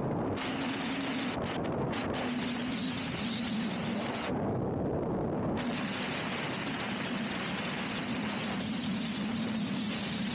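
A car driving steadily at road speed: an even rush of road and wind noise with a low engine hum.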